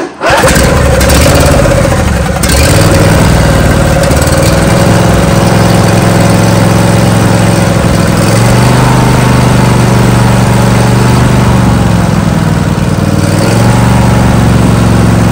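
A 22 hp Briggs & Stratton V-twin lawn tractor engine starts at once and runs steadily as a test run after repair. Its speed steps up about eight seconds in, falls back near twelve seconds, then rises again as the throttle is worked by hand.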